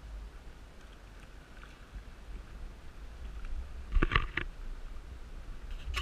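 Choppy pond water lapping and splashing against a camera held at the waterline, with a steady low wind rumble on the microphone; a short, louder splashing burst comes about four seconds in.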